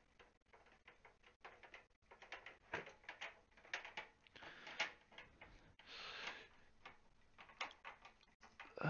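Faint scattered clicks and ticks of a screwdriver driving fan screws into a steel PC case, with a short scrape about six seconds in. The coarse-threaded fan screws go in stiffly.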